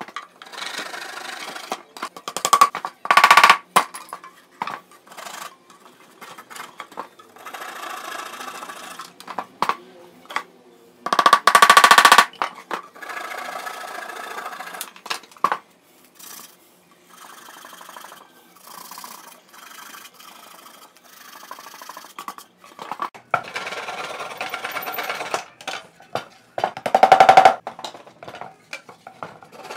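Handsaw cutting protruding wooden plugs off flush with the wood: spells of rapid sawing strokes, several times over, the loudest about three seconds in, about twelve seconds in and near the end.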